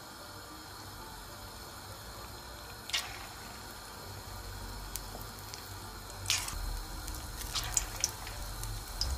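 Floured, egg-dipped pieces of calf brain going one by one into hot sunflower oil in a stainless steel frying pan, the oil sizzling and crackling around them. A sharp pop comes about three seconds in, and the crackling grows from about six seconds on as more pieces go in.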